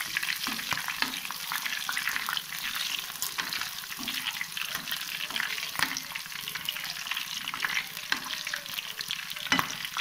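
Curry leaves and slit green chillies sizzling in hot oil in a pan, a steady crackle with many small pops.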